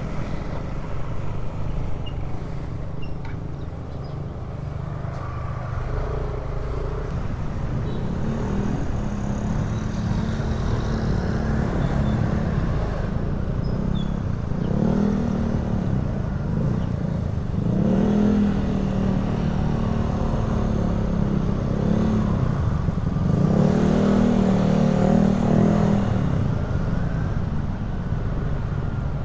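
Motorcycle engine running under way with wind and road rumble, its note climbing and easing off several times as it accelerates and settles.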